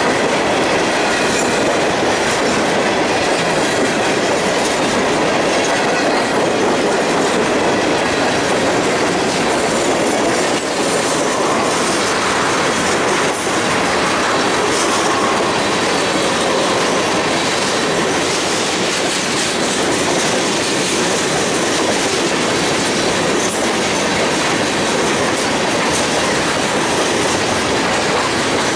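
Freight cars of a passing train, first high-side gondolas and then tank cars, rolling by at close range: steady rumble of steel wheels on the rail with clickety-clack.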